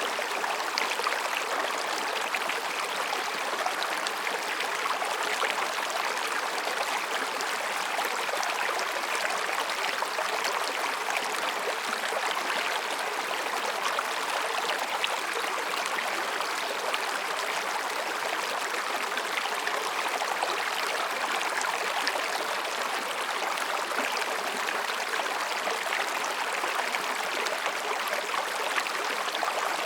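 Mountain stream rushing and babbling over and between rocks, a steady, even water noise.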